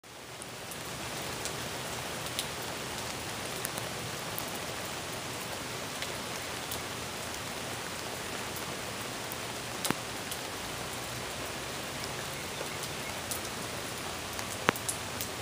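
Steady rain, an even hiss with scattered single drops ticking sharply on the car's glass, two of them louder near the middle and near the end. It fades in over the first second.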